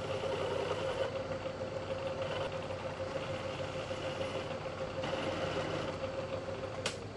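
Bridgeport vertical milling machine running a chamfering bit in the drill chuck, a steady whine over a hiss, as it chamfers clearance holes in steel vise jaws. Near the end there is a sharp click, and the whine then drops a little in pitch.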